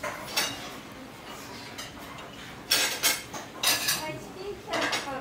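Metal cutlery clinking against a ceramic plate while eating, about half a dozen sharp clinks with short ringing, the loudest around three seconds in.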